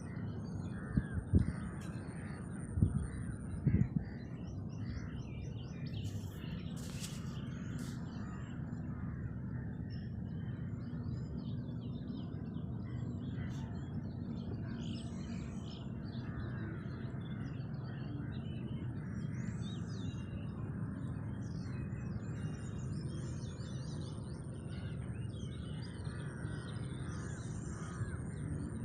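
Outdoor ambience with birds calling, crows cawing among them, over a steady low rumble. A few sharp knocks sound in the first four seconds.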